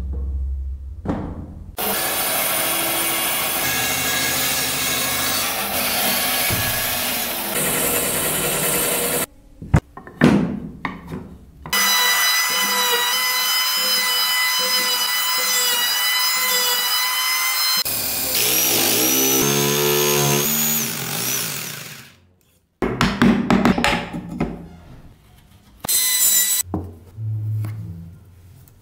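Woodworking power-tool sounds in several short separate stretches. The longest, through the middle, is an electric hand planer's motor running with a steady whine before fading out; shorter bursts of tool work on wood come before and after it.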